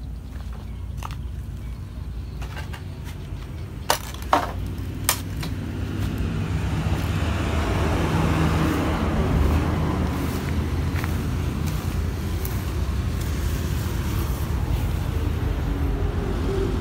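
Passing road traffic: vehicle noise builds about six seconds in and stays up, over a steady low rumble. A few sharp knocks come about four to five seconds in.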